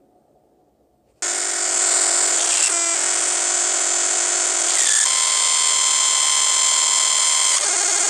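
After a second of faint hiss, a loud, harsh buzzing noise starts abruptly and runs on, with steady whining tones through it that change pitch twice. It is a sound clip offered jokingly as the 'sound' of Saturn's moon Mimas.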